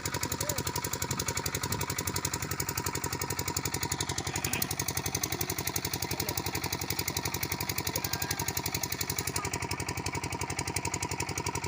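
A small engine running steadily with an even, rapid beat.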